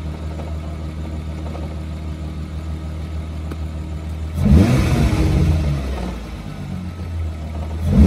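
Volkswagen Mk3 Jetta's 12-valve VR6 engine idling, then blipped up once about halfway through and starting to rise again near the end. The revs sound very healthy.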